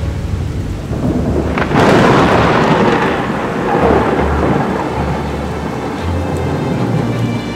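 Thunder over steady rain: a sharp crack about two seconds in, then a long rumble that swells once more and slowly fades.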